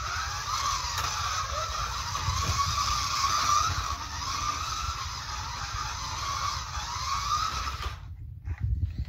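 Secondhand Scalextric slot car lapping the track: a whining, buzzing electric motor whose pitch rises and falls with speed, a car the owner calls as noisy as hell and in need of cleaning and servicing. The whine stops abruptly about eight seconds in, followed by a few clicks.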